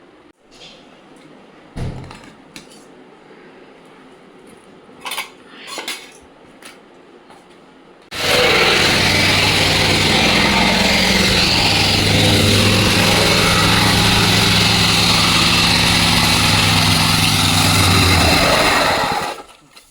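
A few sharp clinks of utensils against dishes. Then, about eight seconds in, a loud, steady rushing noise with a low hum under it starts and runs for about eleven seconds before cutting off abruptly.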